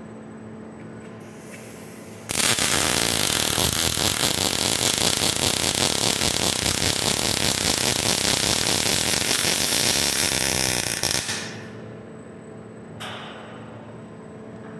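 A KUKA welding robot's MIG torch striking an arc on a steel truss. The arc crackles loudly for about nine seconds: it starts abruptly about two seconds in and stops near the end, leaving a low steady hum.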